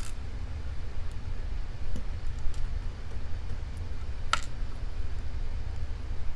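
Two sharp metallic clicks, one at the start and one about four seconds in, from small padlock parts being handled while the lock is taken apart, over a steady low hum.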